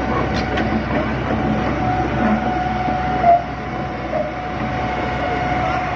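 Hitachi EX200-1 excavator's diesel engine running steadily, with a steady whine over the engine noise and one brief louder sound about three seconds in.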